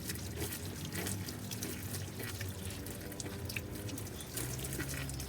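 Water running and splashing as conditioner is rinsed out of hair, with many small drips and splashes throughout.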